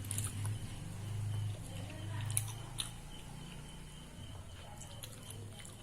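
Close-miked chewing of spicy instant noodles, with a few light clicks and a steady low hum.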